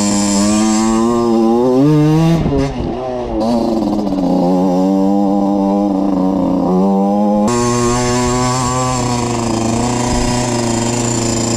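Valenti RME 50cc two-stroke enduro motorcycle engine under way, revving up over the first two seconds, then dropping sharply and picking up again. Its pitch changes abruptly about seven and a half seconds in and then holds steady.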